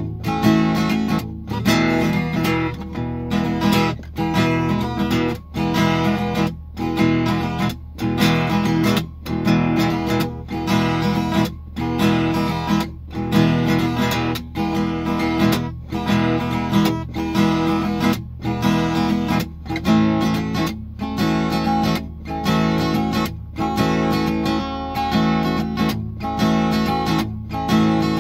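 Cutaway acoustic guitar strummed in a steady rhythm, ringing chords with a short break about once a second, over a steady low hum.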